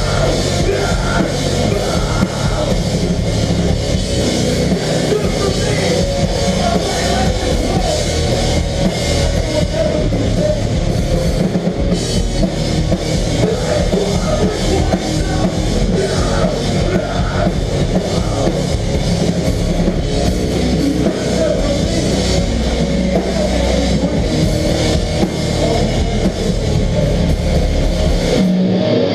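Melodic hardcore band playing live at full volume: a heavy rock drum kit with distorted electric guitars and bass.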